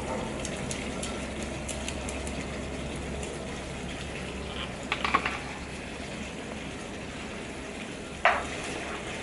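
Tomato sauce bubbling and sizzling in a frying pan over a gas flame while blended tomato is poured in and stirred, a steady cooking hiss. A few light knocks come about halfway through and one sharp clack near the end.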